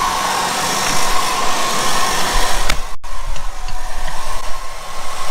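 Hand-held hairdryer running on its lower setting: a steady blowing rush with a whining tone, with a momentary break about three seconds in.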